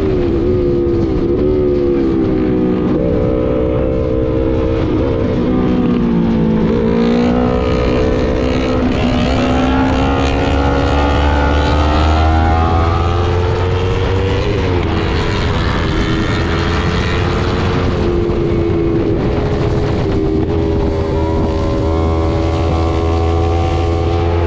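Sport motorcycle engine running at road speed under heavy wind noise. Its pitch dips about five to seven seconds in, then climbs steadily for several seconds, with a sudden change near the middle, as the throttle and gears change.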